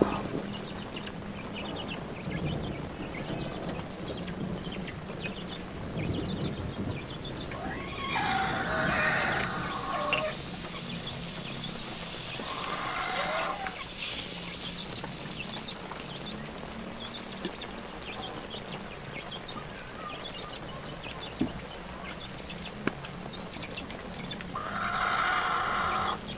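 Chickens calling three times, each call a second or two long, over a steady hiss with a few faint crackles from a wood fire burning in a stone stove.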